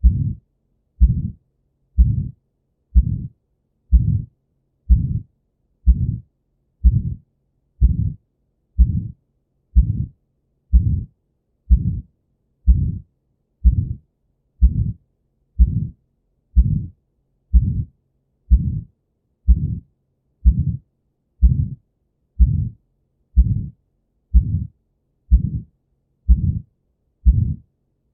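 Auscultated heart with the harsh systolic ejection murmur of aortic stenosis, a narrowed, often calcified aortic valve. A regular beat about once a second, each beat a short low-pitched rush.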